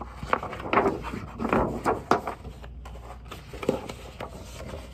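Large paper pages of a big book being turned by hand: several crinkling, flapping rustles in the first two seconds, then a softer rustle near the end.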